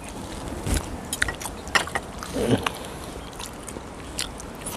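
Eating sounds: bites and chewing with scattered sharp clicks, and a short voice sound about two and a half seconds in.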